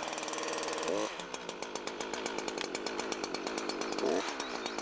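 Husqvarna two-stroke chainsaw idling steadily, revving up briefly twice, about a second in and again near the end.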